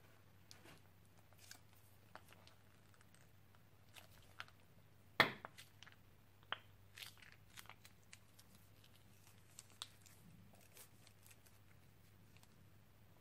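Slime squeezed out of a plastic piping bag onto a plate of slime: faint, scattered crackles and pops, the loudest a sharp pop about five seconds in.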